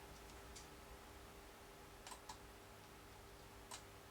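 Near silence: room tone with a few faint, sharp clicks.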